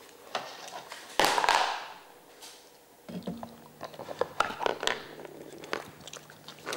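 A dog nosing at a wooden and plastic treat-puzzle toy: a brief loud rushing noise about a second in, then a run of light clicks and knocks as the toy's plastic pieces are pushed around on its wooden base.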